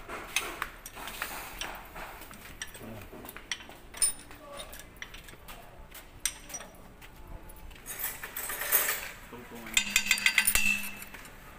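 Steel transmission parts and hand tools clinking and tapping against each other and the housing as they are handled, with a quick flurry of metallic clicks near the end.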